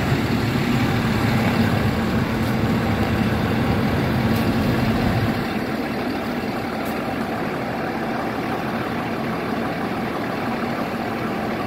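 Diesel train's engines running steadily with a low rumble, which drops a little in level about five seconds in.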